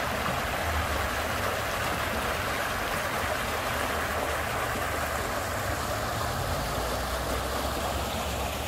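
Floodwater gushing out of a corrugated drain pipe into a stream: a steady rush of white water, the drain running at full capacity.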